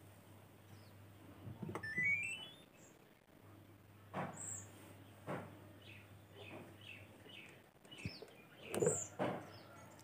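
Samsung top-load washing machine switched on: its power-on chime, a short rising run of electronic tones about two seconds in. A few faint knocks and small high chirps follow.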